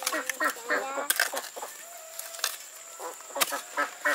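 Farmyard poultry calling: a run of short honks and squawks, with one longer held call near the middle. A few sharp knocks fall among the calls.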